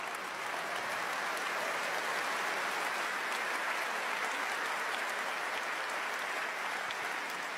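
Large theatre audience applauding, a steady wash of clapping that swells in the first second and eases slightly near the end.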